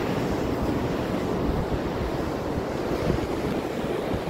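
Wind buffeting the phone's microphone: a steady rushing noise with uneven low rumble.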